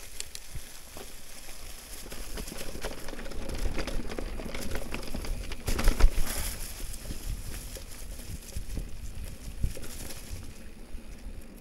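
Electric mountain bike rolling along a dirt trail covered in dry leaves: tyres crackling over the leaves, with many small knocks from bumps and one louder jolt about six seconds in.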